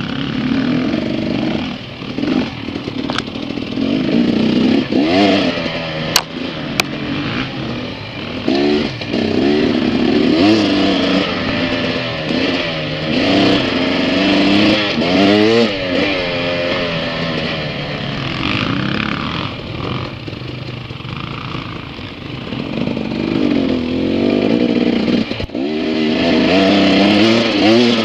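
Dirt bike engine revving, its pitch rising and falling over and over as the throttle opens and closes, with a couple of sharp clicks a few seconds in.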